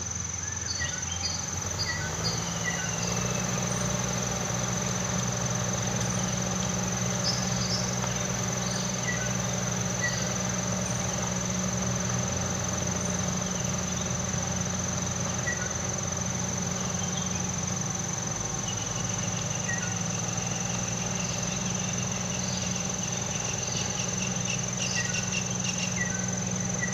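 Steady high-pitched insect drone, with short bird chirps now and then, over a steady low mechanical hum.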